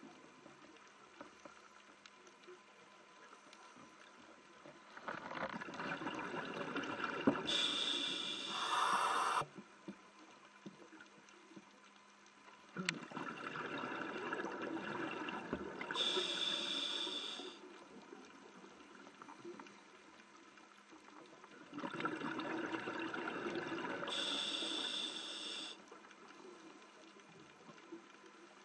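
Scuba regulator breathing underwater: three breaths about eight seconds apart, each a long rush of bubbles with a sharper, higher hiss near its end. Faint steady underwater hiss in between.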